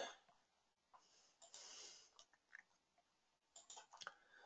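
Near silence: room tone, with a faint breath and a few faint mouse clicks in the last second.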